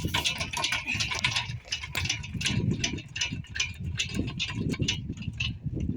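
Quick, uneven footfalls and knocks of someone running on playground equipment, with a rumble of wind or handling on the microphone.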